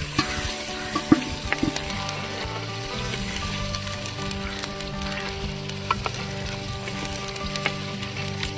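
Food frying and sizzling in a cooking pot while it is stirred, with sharp clicks of the spoon against the pot.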